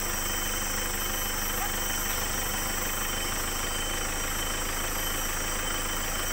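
Engine of a 4x4 running steadily, with an even, unchanging hum.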